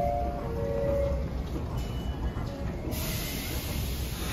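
R68-series Q subway train standing at the platform with a steady low rumble, a two-note descending chime in the first second, then a hiss of air that starts about three seconds in.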